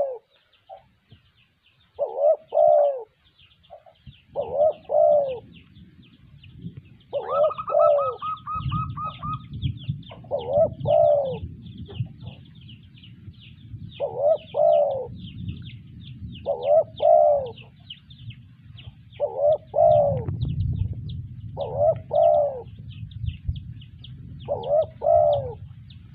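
Spotted dove cooing, a short phrase repeated every two to three seconds, about nine times. Fast, thin, high chirping runs behind it throughout, with a low rumble from about four seconds in.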